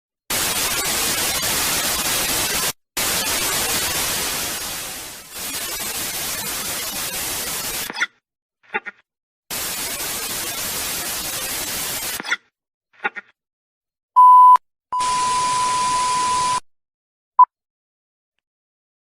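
White-noise static, like a detuned TV or radio, in three stretches of a few seconds each, with short blips between them. Later comes a steady high beep tone, first briefly on its own and then under another burst of static, and then one short beep.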